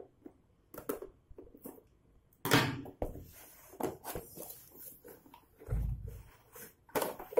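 A spanner set's packaging being opened and handled: irregular rustling with several knocks and clicks, the loudest about two and a half seconds in and a dull thump near six seconds.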